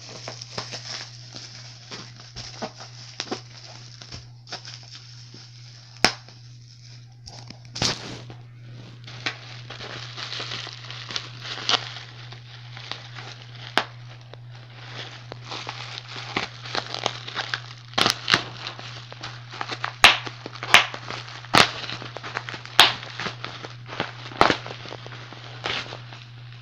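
Packaging around a replacement laptop screen being unwrapped: irregular crinkling, crackling and tearing, with sharp crackles coming thicker in the second half, over a steady low hum.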